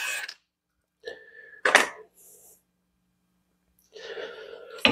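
Cordless 1/2-inch impact wrench whirring on a wheel's lug bolt, stopping abruptly a moment in. It is followed by a short burst with a sharp click nearly two seconds in, then quiet.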